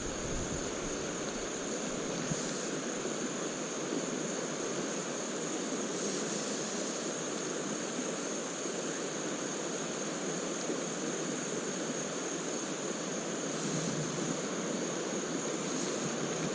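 Creek water running over rocks in a steady, even rush.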